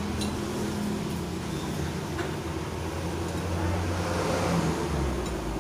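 Road traffic passing close by: a steady low engine rumble that swells a little around four seconds in, as a vehicle goes past.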